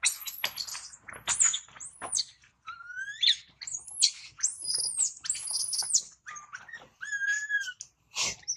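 Baby long-tailed macaque giving a rapid string of shrill, high-pitched screams that arch up and down in pitch, the distress calls of an infant being pulled about by an adult. A brief thump sounds near the end.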